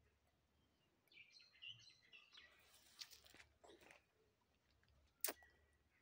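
Faint bird chirps, a cluster of short high calls between about one and two and a half seconds in, over quiet outdoor background noise, with a single sharp click near the end.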